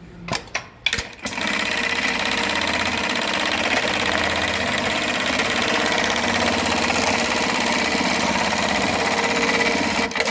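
LK1920HA industrial pattern sewing machine sewing a seatbelt stitch pattern: a few sharp clicks at the start, then the machine runs steadily at high speed for about nine seconds and stops with a few more clicks near the end.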